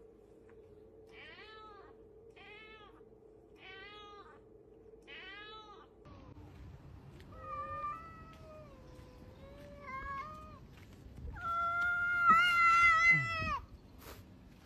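A cat meowing four times in short calls, about one every second and a bit, over a steady hum. Then two ginger cats in a standoff yowling in long, wavering howls that build to the loudest, drawn-out yowl near the end before cutting off.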